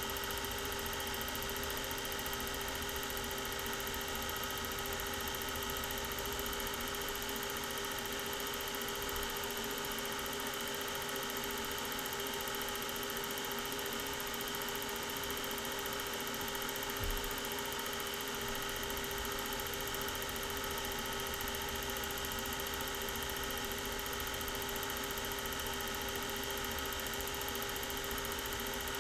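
Home-movie film projector running: a steady motor hum and whir with constant tones. One brief knock comes a little past halfway.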